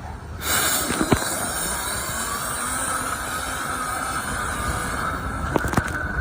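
A powerful vent-cleaning blower motor switches on about half a second in and runs with a rushing hiss of air and a steady high whine. Near the end, scattered sharp clicks and knocks come through over it.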